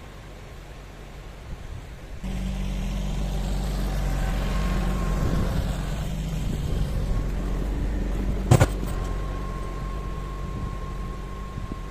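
Yanmar compact tractor's diesel engine running steadily as it drives and works its rear rotary tiller through the soil. The engine is faint at first, then suddenly louder and close about two seconds in. There is one sharp knock about two-thirds of the way through.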